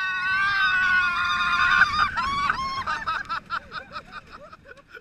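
Roller coaster riders screaming on a drop: one long held scream for about two seconds, then a string of short, rapid yells that fade out. Wind rushes on the microphone underneath.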